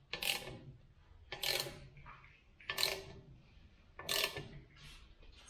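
Hand ratchet wrench clicking in four repeated strokes, about one every second and a half, as bolts are tightened to pull the clutch assembly off its splined shaft.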